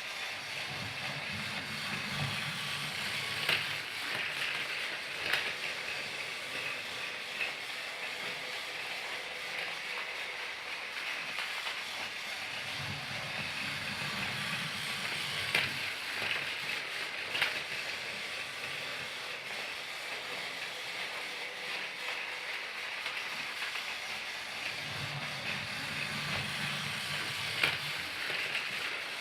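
Motorised Thomas the Tank Engine toy train running steadily: a constant whirring hiss with occasional sharp clicks, and a low rumble that swells and fades about every twelve seconds.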